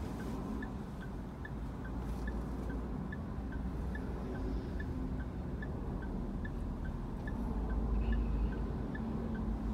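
Car turn-signal indicator ticking steadily, a little over two ticks a second, over the low rumble of a stationary car's idling engine and surrounding traffic. The rumble grows louder near the end as a large vehicle passes close by.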